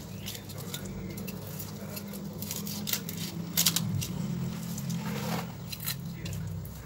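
Kitchen knife cutting along the back of a small tilapia on a wooden chopping block: a few short sharp crunches and clicks as the blade goes through scales and bone, with a longer scrape about five seconds in, over a low steady hum.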